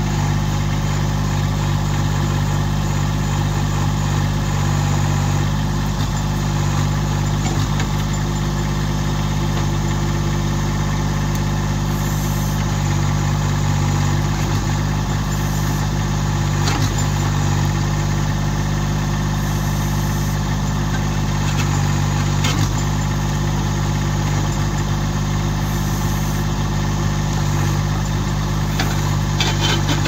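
Massey Ferguson GC1710 sub-compact tractor's three-cylinder diesel engine running steadily while its backhoe digs around a tree stump, with a few short knocks scattered through.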